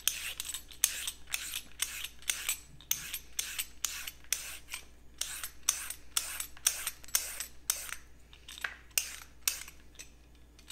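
Vegetable peeler scraping down a raw carrot in quick repeated strokes, about two to three a second, shaving it into thin ribbons.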